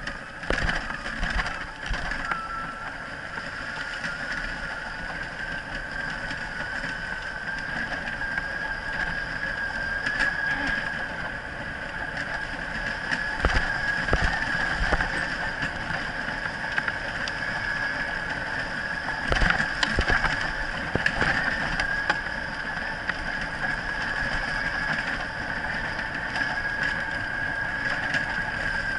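Wheels of a dog-drawn dryland rig rolling fast over a dirt trail: a steady rolling noise with a high whine that rises a little in the first couple of seconds. Knocks from bumps come about 13 and 20 seconds in.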